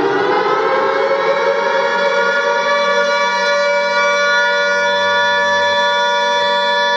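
Civil defence siren sounding, its pitch finishing a rise in about the first second and then holding one steady tone. This is the siren sounded at 17:00 to mark 'W' Hour, the start of the Warsaw Uprising.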